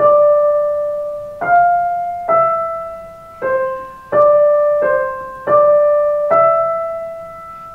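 Digital piano played slowly, one note at a time: about eight notes in the middle register, each held and fading until the next is struck.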